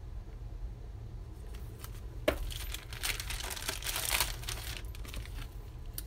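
Clear plastic stamp-set packages being handled: a sharp click about two seconds in, then a couple of seconds of plastic crinkling and rustling, over a steady low hum.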